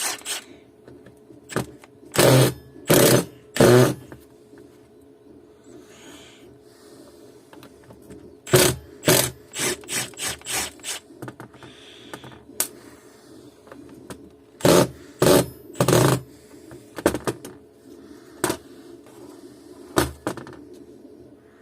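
Impact driver fired in repeated short bursts of hammering, about fifteen trigger pulls in clusters, on a stuck screw that will not come loose. A faint steady hum runs underneath.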